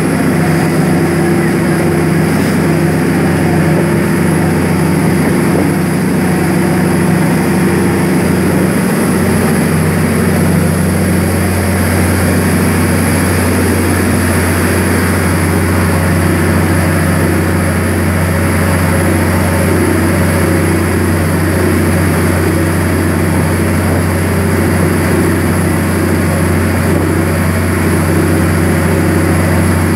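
Heavy diesel engine of a multi-deck Amazon riverboat running steadily under way at speed, a loud low hum with water rushing along the hull. The hum steadies and firms up about nine seconds in.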